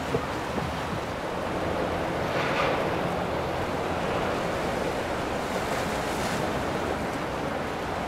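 Steady rush of wind and water, with a louder swell of water noise about two and a half seconds in.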